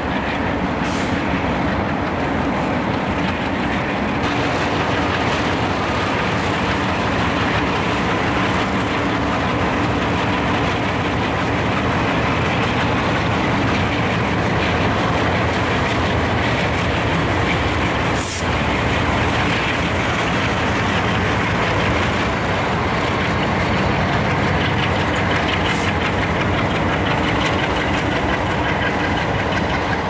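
Diesel freight locomotives working a long freight train up a grade: a steady, loud engine drone over the rumble of the passing cars, with a few brief high hisses or squeals.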